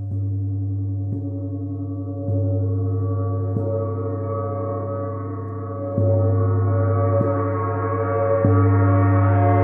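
Total Eclipse gong played with a fleece-headed mallet, struck softly about seven times so that each stroke adds to one sustained ringing wash. A deep steady hum sits under the ring, and the overtones spread higher as it swells louder.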